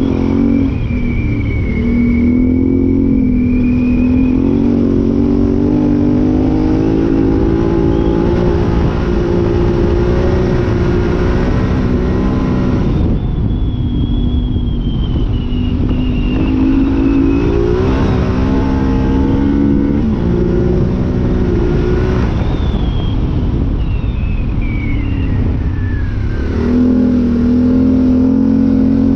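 Yamaha Ténéré 700's parallel-twin engine running hard under load through an Arrow high exhaust, its pitch rising and then dropping back several times. Steady rumbling wind and road noise runs underneath.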